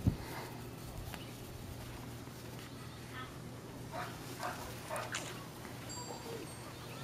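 Labrador retriever puppies giving a few short, high-pitched whimpers about four to five seconds in, under a low steady background hum.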